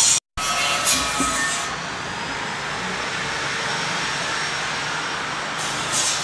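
Steady workshop background noise, a dull mechanical hum and hiss, with a brief dropout to silence just after the start.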